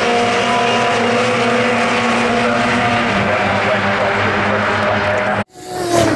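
Mini Miglia race cars' four-cylinder BMC A-series engines running hard as a pack of Minis passes, several engines blending into one steady note. It cuts off abruptly near the end, followed by a short swelling whoosh.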